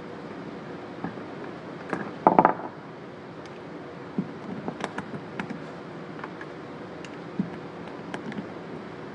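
Small clicks and taps of a pistol being handled on a shooting bench, scattered irregularly, with one brief louder noise about two seconds in.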